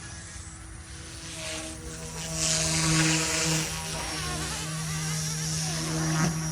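Goosky S2 Legend RC helicopter in flight: its dual direct-drive brushless motors and rotors whine at a steady pitch that shifts slightly. The sound swells louder for a moment a few seconds in.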